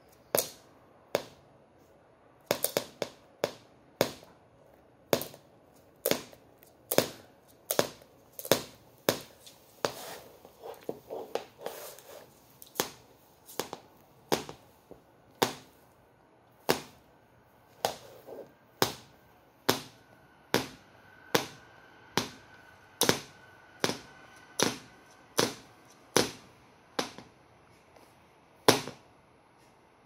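Sharp taps of a shoe on a hard laminate floor, about one to two a second in an uneven rhythm, with a white-bellied caique tapping its foot along.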